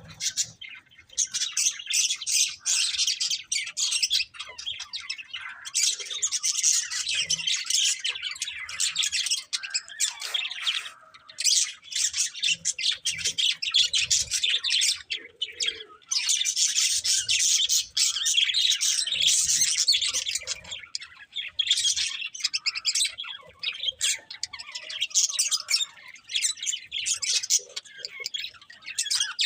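Budgerigars chattering and warbling in a continuous stream of fast chirps and squawks, with a few short lulls.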